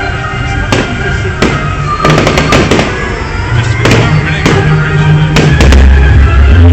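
Fireworks going off in a string of sharp bangs, over loud music from a display's sound system. The music's bass comes in heavily near the end.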